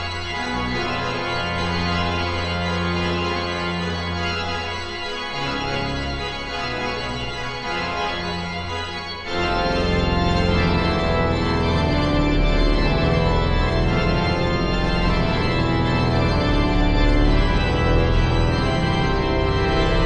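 Organ music played on a multi-manual console, with sustained bass notes on the pedals. About nine seconds in it suddenly becomes louder and fuller, and stays that way.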